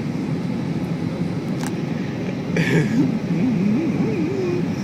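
Steady cabin noise of an Airbus A320 airliner in flight, a low even rush from the engines and airflow. There is a brief click about a second and a half in, and a short wavering hummed tone in the second half.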